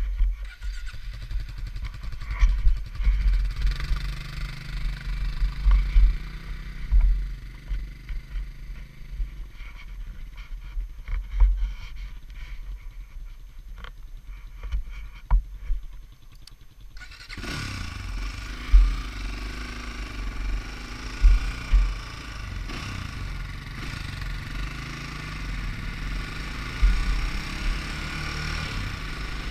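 Two-wheel-drive ATV engine running while being ridden, with wind buffeting the microphone in loud low gusts. About seventeen seconds in the sound changes abruptly to a brighter, hissier engine note that holds steady.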